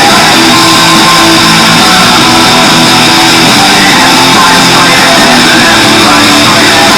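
Loud rock entrance music with guitar, played over the arena's PA.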